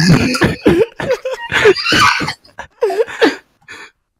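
A person coughing and making short wordless vocal noises, a quick run of bursts that stops shortly before the end.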